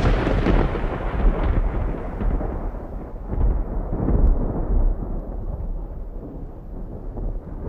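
Deep rolling rumble like thunder, a sound effect under animated title cards. It is loudest at the start, swells a few times, and slowly dies away as its hiss fades.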